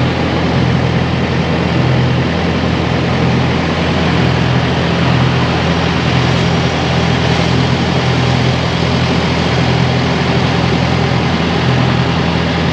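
Wooden passenger boat's engine running steadily under way, a constant low drone, with the steady rush of water and wind as the boat moves.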